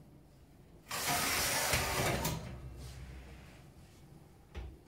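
Metal baking tray sliding into an oven along its side rails, a scraping metallic rattle for about a second and a half. A short click near the end as the oven door is swung up on its hinges.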